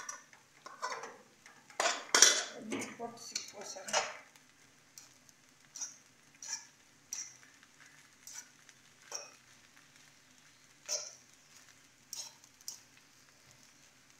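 A utensil stirring and scraping through rice in a non-stick frying pan on the stove. A quick flurry of scrapes and clatter comes in the first four seconds, then single scrapes about once a second.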